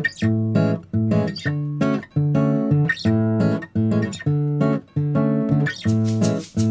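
Background music: strummed acoustic guitar chords in a steady rhythm, about two strums a second.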